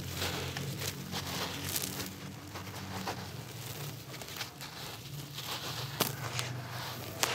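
Hands squeezing and crumbling a soaked, gritty block in a basin of water: a continuous wet, crunchy crackle of grains grinding and squelching, with a few sharper clicks, the clearest about six seconds in and again near the end.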